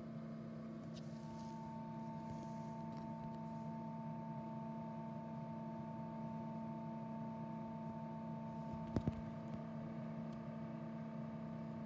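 Egg incubator running with a steady motor hum; a higher tone joins the hum about a second in. Two sharp clicks close together about nine seconds in.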